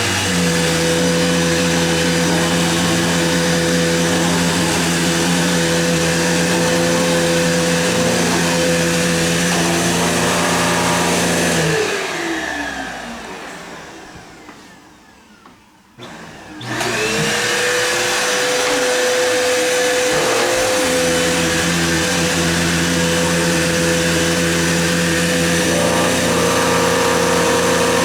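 Vacuum cleaner switched on, its motor spinning up to a steady whine and running for about twelve seconds before it is switched off and winds down. A few seconds later it is switched on again and runs steadily, beginning to wind down right at the end.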